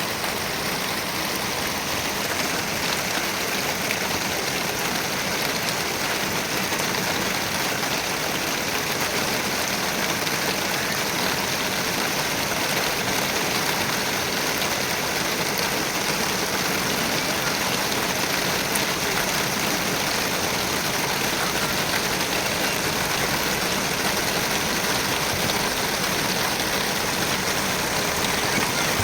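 Heavy rain falling, a steady downpour with no breaks.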